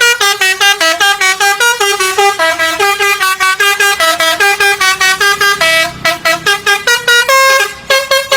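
Bus telolet basuri musical horn playing a fast tune: a loud, unbroken string of short tooting notes that hop up and down in pitch, several notes a second.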